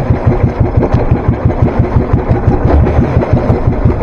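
Small fishing boat's engine running steadily, with an even low pulse of several beats a second.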